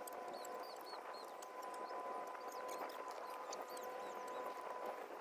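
Faint outdoor ambience: a steady hum from a distant engine or machine, with many short high chirps and a few light clicks over it.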